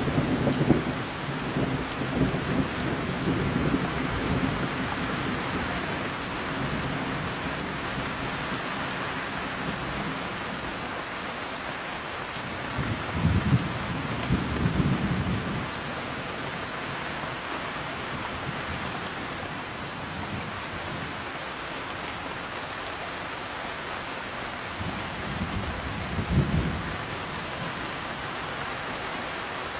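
Heavy rain falling steadily, with rolls of thunder: one rumbling through the first few seconds, another about halfway through and a shorter one near the end.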